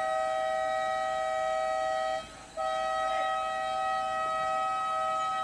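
A two-tone horn sounding in two long, steady blasts, with a brief break about two seconds in; it stops abruptly near the end.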